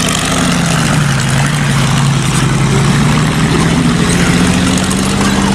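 Heavy tank engine running, a steady low rumble whose pitch dips about a second in and then climbs back. It cuts in abruptly as an added sound effect.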